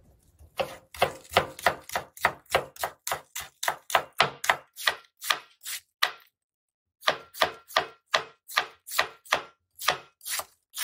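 Chef's knife chopping on a cutting board in a quick, even rhythm of about three strokes a second, first slicing green onions and then shredding cabbage. The strokes pause briefly a little after six seconds in.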